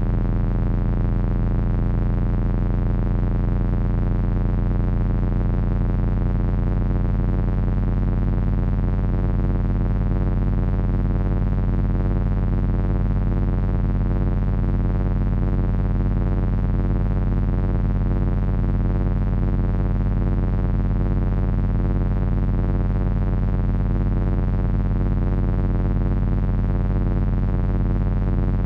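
Loud, steady electronic drone from three Frequency Analyzer v1 units driven by an HP 200C audio oscillator. A heavy low hum with many stacked overtones, the upper ones wavering in a slow, even beating.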